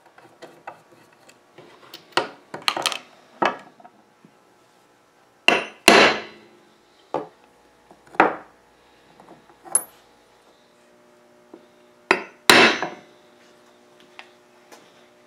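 Hammer striking steel number punches into mahogany, about ten sharp taps spread out singly and in pairs, with the loudest a little before halfway and near the end. The punches stamp matching numerals on a drop leaf and the table edge it fits against.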